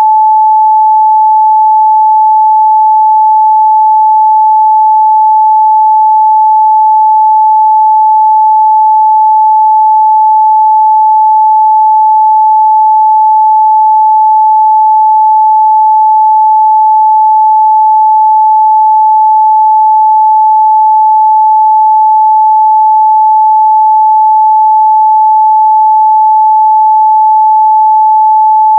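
A pure 867 Hz sine-wave test tone, held steady at one pitch and loudness with no other sound.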